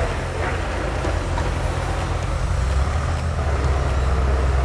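A steady low rumble with a faint hiss over it.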